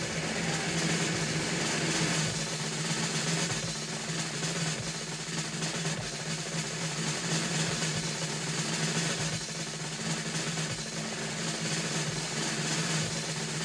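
Circus show music: a sustained snare drum roll over a steady low drone.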